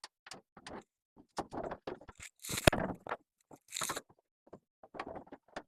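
Hands handling objects at close range: a run of short scrapes and rustles with one sharp click about two and a half seconds in.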